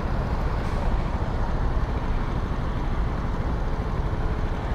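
Steady low rumble of riding on a motorcycle, engine and wind noise blending into an even roar.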